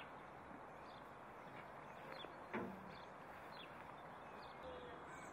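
Quiet outdoor ambience: a steady low hiss with small birds chirping over and over, and one sudden short sound about halfway through that drops sharply in pitch.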